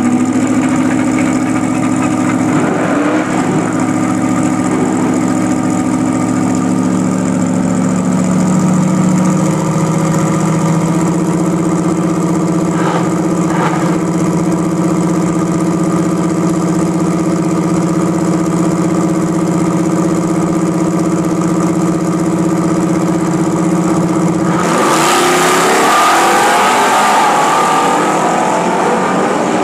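A 1979 Pontiac Sunbird drag car's engine idles steadily at the starting line, its note shifting slightly a few times. About 25 seconds in it launches at full throttle, and the engine note climbs as the car pulls away down the strip.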